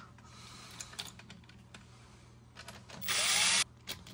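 Cordless impact driver run in one short burst, about three seconds in, with a rising whine as it spins up, tightening the bolt of a blower motor's mounting band. A few light tool clicks come before it.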